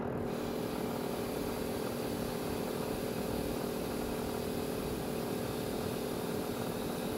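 Tefal upright garment steamer running: a steady mechanical hum with an even hiss over it.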